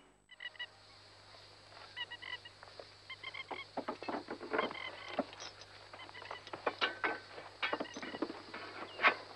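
Hand tools such as picks and shovels striking earth and stone in a run of sharp knocks, the loudest near the end, with short repeated honking calls in small groups, mostly in the first few seconds.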